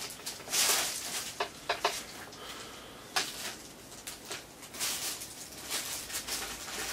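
Handling noise: items being gathered and moved about, with rustling and several light clicks and knocks as things are picked up and set down.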